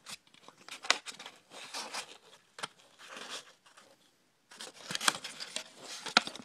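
Paper cone of a car door speaker being torn and crumpled by hand: irregular crackling, ripping and sharp snaps, with a short pause about four seconds in before denser crackling resumes.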